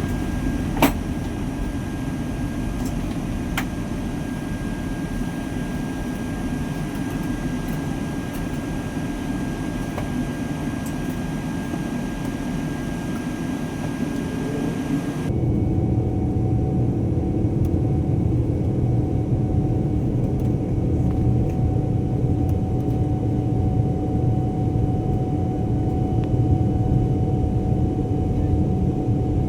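Steady rumble of a moving vehicle heard from inside its cabin, with a single click about a second in. About halfway through the sound changes abruptly to a deeper, slightly louder rumble with a steady hum.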